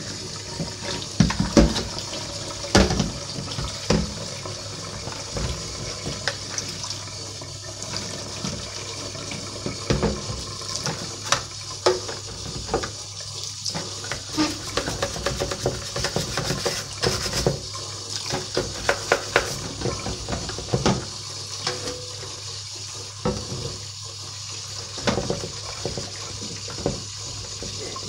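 Kitchen tap running steadily into a stainless steel sink while a plastic washing machine detergent drawer is rinsed by hand under it, with frequent irregular knocks and clatters of the plastic against the sink.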